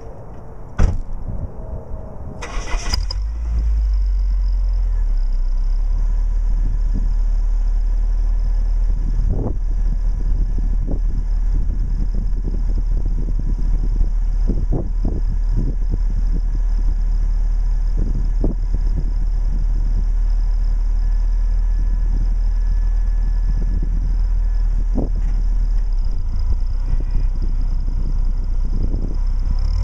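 Saturn SL2's 1.9-litre four-cylinder engine being cranked and catching about three seconds in, then idling steadily. The exhaust is fitted with a fake turbo whistler.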